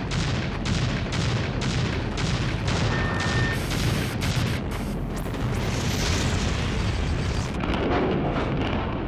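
Demolition explosive charges detonating in a timed sequence, about three sharp bangs a second. The bangs come faster and then merge into a continuous roar.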